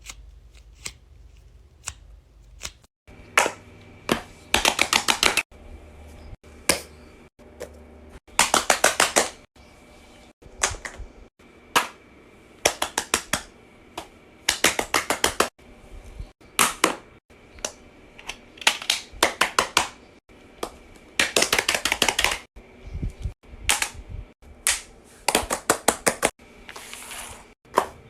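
Plastic fidget toys being clicked and popped: quick runs of sharp pops, several a second, in short bursts with frequent breaks.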